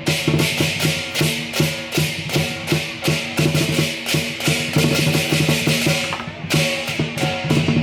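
Lion dance percussion: a drum beating with rapid clashing cymbals, several strikes a second, over low ringing tones, with a brief break in the cymbals about six seconds in.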